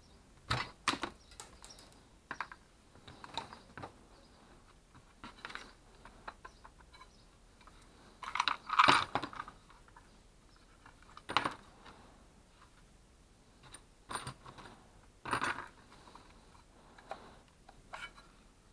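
Parts of a disassembled hand-held circular saw being handled on a wooden workbench: scattered clicks and knocks of metal and plastic housings, with the loudest cluster of knocks about halfway through.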